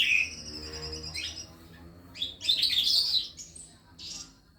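Calandra lark singing: a call and a held high whistle at the start, then a dense burst of rapid chirping notes about two seconds in and a shorter one near the end.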